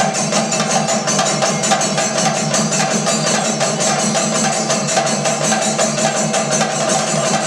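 Thayambaka: chenda drums beaten with sticks in a fast, unbroken stream of strokes, over the steady beat of the accompanying chendas and the shimmer of ilathalam cymbals.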